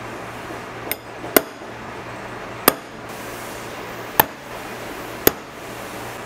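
Hammer striking five times at uneven gaps of about one to one and a half seconds: sharp, short blows, the first one lighter, over a steady background hum.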